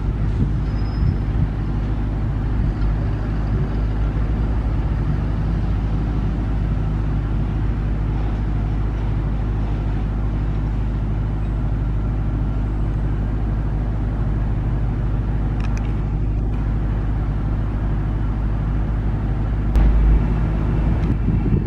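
Steady low rumble of a Boeing 777's jet engines on final approach with the landing gear down. A brief low thump comes near the end.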